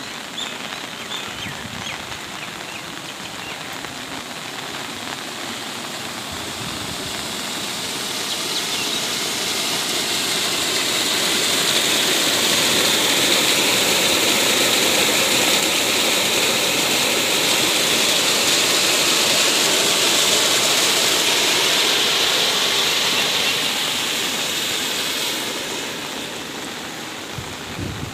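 Heavy rain with the rush of muddy floodwater; the rushing swells to a steady loud pour in the middle, where water gushes from a drainage pipe into a channel, and eases again near the end.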